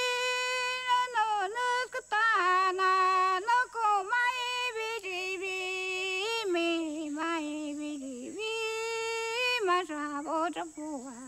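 A woman singing a slow melody alone, with no instruments, holding long notes and stepping between a few pitches.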